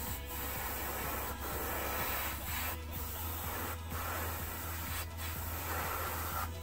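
Airbrush spraying paint: a steady hiss of air and paint, broken by short gaps every second or so as the spray stops between passes, over a low steady hum.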